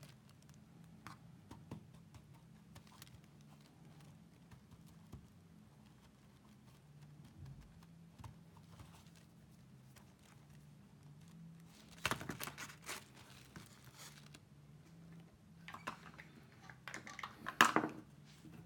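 Small plastic toys and a clear plastic wrapper handled on a tabletop: faint taps and clicks, with louder bursts of crinkling wrapper about twelve seconds in and again near the end.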